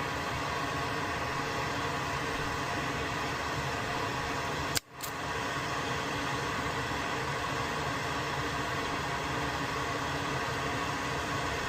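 Electric desoldering tool running with a steady fan-like whoosh while it heats solder on a circuit board. The sound cuts out briefly about five seconds in, then carries on.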